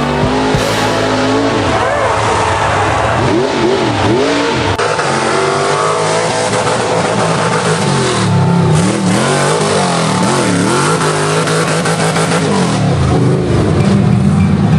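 Off-road truck engine revving hard over and over, its pitch swinging up and down many times as the throttle is worked, typical of a rig bouncing its way up a steep hill climb.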